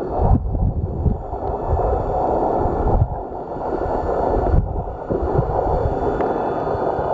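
Water churning and gurgling around a camera held underwater, muffled, with irregular low thuds from movement in the water.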